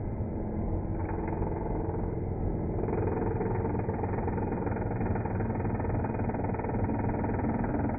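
Hand-held electric adzing tool running steadily, its cutter working across an oak beam, getting a little louder about three seconds in as it bites into the wood.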